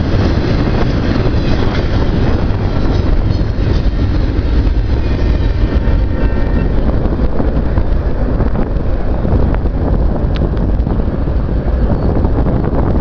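The last cars of a double-stack intermodal container train rolling past on the rails, the train noise thinning out after the first several seconds as it clears. Wind rumbles on the microphone throughout.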